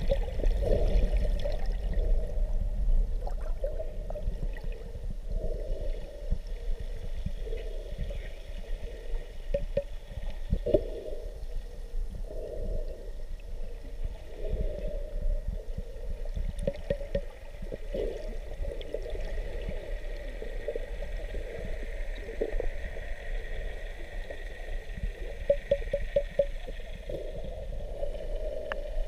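Underwater sound picked up through a submerged camera: muffled gurgling and sloshing of water over a low rumble, with many small irregular knocks and crackles and short runs of fast ticking.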